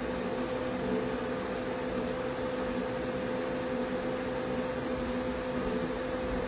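A steady droning hum over a constant hiss, with no distinct events.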